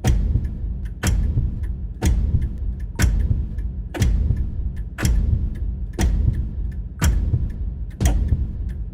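Horror-style heartbeat sound effect: a deep, heavy thud about once a second, each with a sharp attack and a fading low rumble. Faint ticking runs between the beats.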